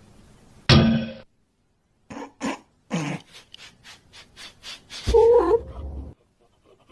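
A pet animal calling several times in separate short cries, with the loudest cries coming under a second in and about five seconds in. A row of quick light ticks falls between them.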